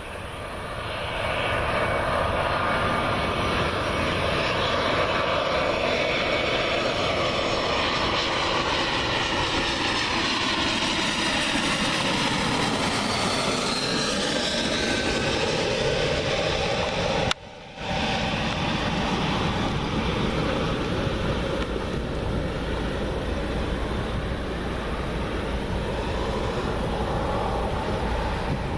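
Airbus A321 jet airliner's engines on final approach, passing low overhead: a loud, steady jet noise whose tones glide down in pitch as it goes by. After a brief break about two-thirds of the way through, a steadier, duller rumble of the jet follows.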